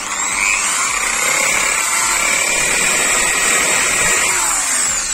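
iBELL TD13-100 650 W impact drill running at speed as its bit bores into a painted wall, a steady high motor whine. About four seconds in the trigger is let go and the whine falls in pitch as the motor spins down.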